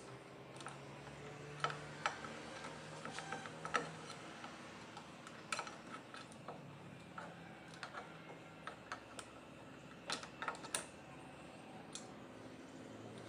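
Irregular metallic clicks and clinks as the rear drum brake shoes, return springs and hold-down pins of a Maruti Alto are worked off the brake backing plate by hand.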